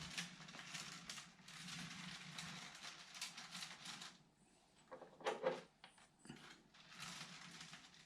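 Faint rustling and handling noise with many small clicks, and a brief louder clatter about five seconds in.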